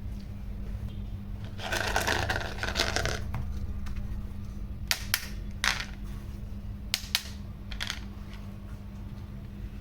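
Toys being handled: a rattling clatter about two seconds in, then a handful of sharp clicks and taps.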